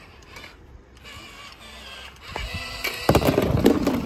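Small die-cast toy cars rolling and rattling down a plastic slide. The clatter gets louder over the last couple of seconds.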